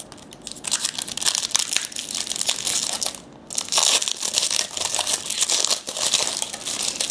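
A trading-card pack wrapper being torn open and crinkled in the hands. Two stretches of dense crackling are broken by a short pause a little past halfway.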